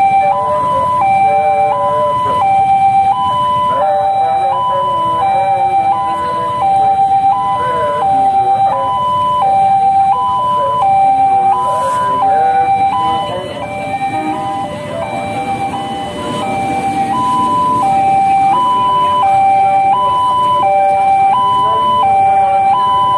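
Railway level-crossing warning alarm sounding steadily, an electronic two-tone signal alternating high and low about once a second, warning that a train is coming. In the second half the rumble of a passenger train passing over the crossing rises under it.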